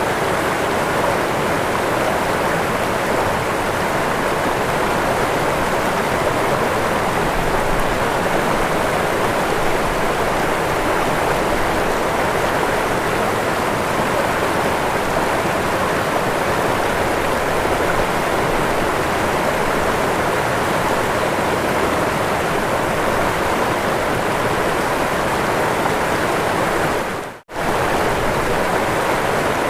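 Waterfall: a steady, even rush of falling water. Near the end the sound briefly drops out for a fraction of a second, then resumes as before.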